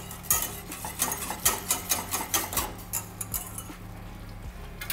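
Wire whisk beating and clinking against the sides of a small stainless-steel saucepan in quick repeated strokes, easing off after about three and a half seconds. It is red wine with agar-agar being whisked as it heats toward the boil.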